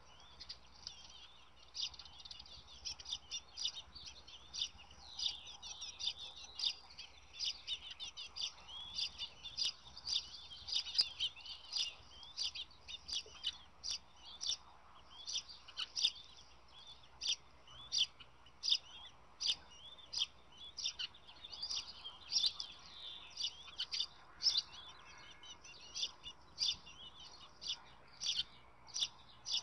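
Birds chirping: a steady stream of short, high-pitched chirps, several a second.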